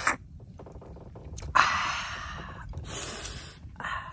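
A person's breathy exhales or gasps: the loudest starts suddenly about a second and a half in and fades over about a second, with two shorter, hissier breaths after it.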